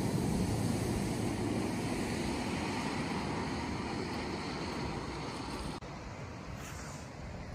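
Steady rush of floodwater flowing over a road, with a car splashing through the water and fading as it drives away. About three quarters of the way through the sound cuts off suddenly to a quieter, thinner rush of water.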